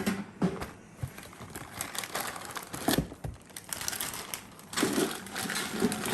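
Food packaging crinkling and crackling as it is handled and opened, with irregular sharp clicks and rustles.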